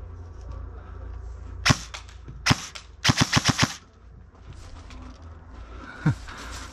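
Airsoft electric rifle firing: two single shots about a second apart, then a short full-auto burst of about seven rapid shots. A lighter knock comes near the end.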